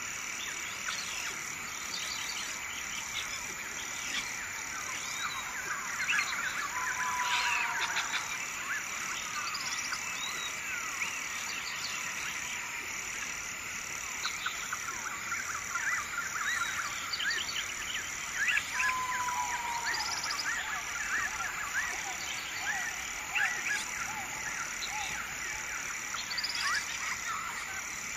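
Nature ambience: a dense chorus of short, overlapping animal chirps and calls over a steady, evenly pulsing high trill, with a lower sliding call twice.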